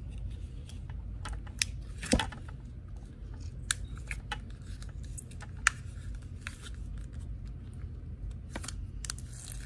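Fingers poking and working glossy, Jell-O-like slime in a clear plastic cup: scattered sharp sticky clicks and pops, the loudest about two seconds in, over a steady low hum.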